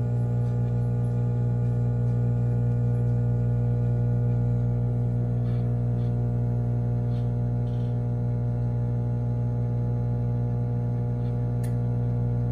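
Microwave oven running with a steady electrical hum while it heats bars of Ivory soap, with a few faint ticks over it.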